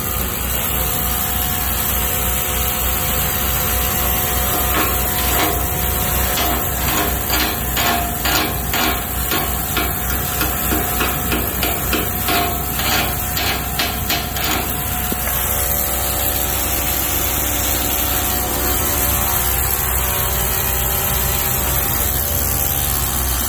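Repeated hammer strikes, about two a second, starting about five seconds in and stopping about fourteen seconds in, over a steady engine running underneath.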